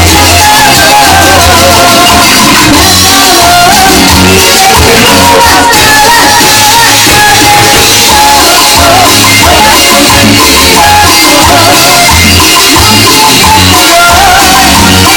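A live band rehearsing: a singer over drum kit and bass, very loud throughout.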